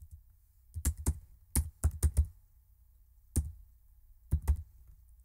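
Computer keyboard typing: about eight keystrokes in short irregular groups of one to three, with pauses between them.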